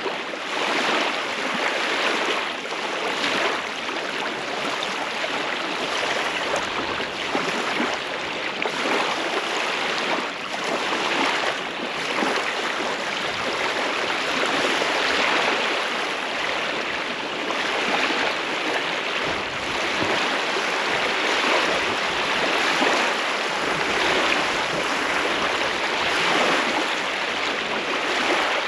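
Small wind-driven waves lapping on a lakeshore: a steady wash of water that swells and eases every second or two.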